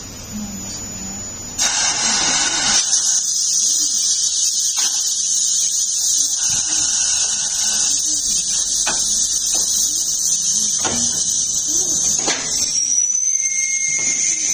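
Tyre-shop equipment working on a wheel: a steady high-pitched whine and hiss, broken by sharp clicks, with a tone that rises near the end.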